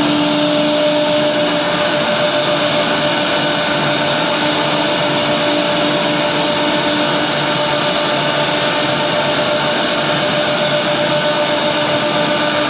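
CNC router spindle running steadily while carving wood, a constant whine of several steady tones over an even, noisy hiss.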